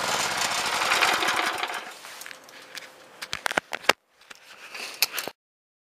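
Harbor Freight 6.5 hp single-cylinder engine on a rototiller winding down after being shut off, its running note dying away over about two seconds. A few sharp clicks or knocks follow, then the sound cuts off abruptly.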